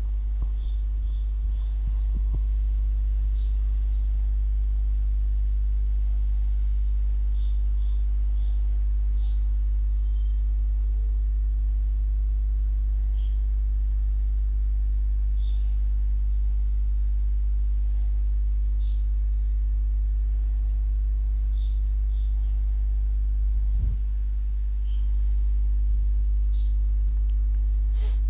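Steady low electrical mains hum with a stack of overtones, unchanging throughout, with faint short high chirps every second or two.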